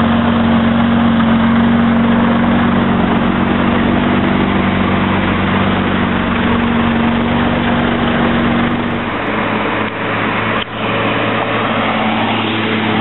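Lamborghini Murciélago LP640's V12 engine idling with a steady note that drops lower about nine seconds in.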